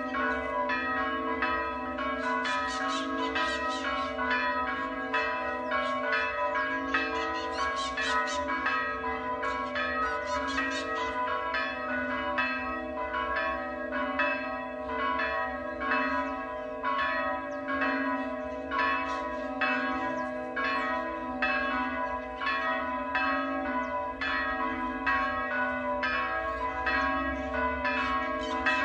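Several church bells ringing together, with rapid overlapping strokes over a sustained ringing hum.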